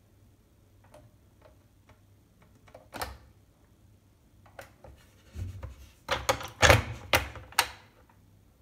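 Plastic clicks and knocks from a soft-close toilet seat's hinge bar being handled and set down onto its two metal fixing posts. A few light ticks come first, then one click, then a quick run of sharp knocks in the last few seconds as the seat seats onto the posts.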